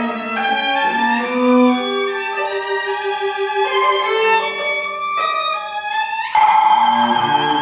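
Contemporary classical chamber ensemble playing, with bowed violin prominent among sustained overlapping notes and pitch bends. A rising glide leads into a sudden louder passage about six seconds in.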